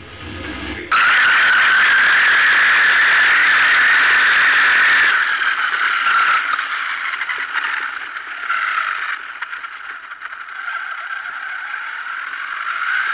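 Electric RC buggy running over a dirt track, heard from a camera on the car: a motor whine that drifts up and down with speed over a steady rattle and hiss of tyres and chassis on loose dirt. It starts suddenly about a second in.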